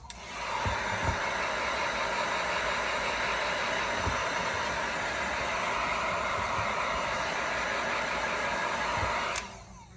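Handheld electric air blower running steadily with a loud, even rushing hiss, switched on just after the start and cut off abruptly near the end.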